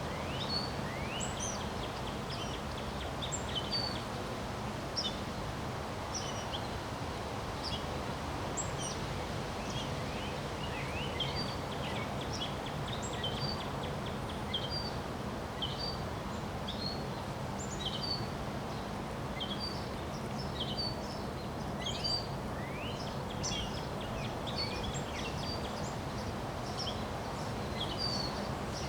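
Steady rush of wind, with many small birds chirping throughout: short, high chirps and quick rising calls, several birds calling over one another.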